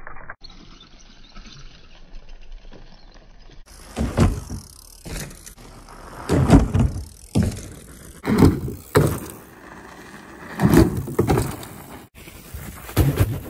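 Bicycle riding over jump ramps on gravel: tyres rolling on gravel with a series of thuds and rattles as the bike hits the ramps and lands, about nine in all.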